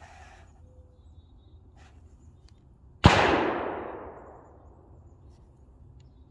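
A single shot from a Smith & Wesson Performance Center Model 629 Compensated Hunter .44 Magnum revolver about three seconds in, a sharp loud crack whose report rings and dies away over about a second and a half.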